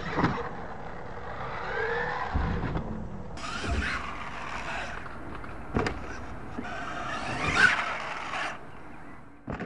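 Radio-controlled monster truck revving in bursts, its motor whine rising and falling, with the tires spinning on loose dirt and several thumps as it hits ramps and lands jumps.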